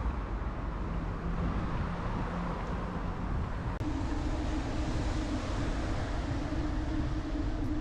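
Wind rushing over a bicycle dashcam's microphone while riding, with road traffic noise as cars pass. About four seconds in the sound briefly drops out at a cut, after which a steady low hum runs under the wind.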